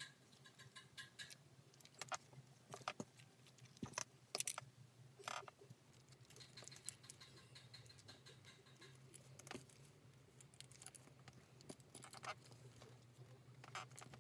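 Quiet handling sounds of hand-stitching a leather strap: scattered light clicks and short rasps as the needle and thread are pulled through the leather and the strap is handled, over a steady low hum.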